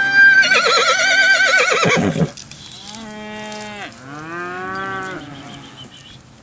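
Cattle bawling: three calls. The first is the loudest, about two seconds long and wavering in pitch. Two shorter calls follow, one steady and one rising and falling.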